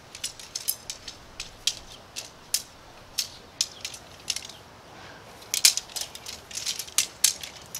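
Shock-corded tent pole sections clicking and clacking together as a folded pole is pulled apart and fitted section by section: a run of sharp, irregular clicks that come faster and louder over the last couple of seconds.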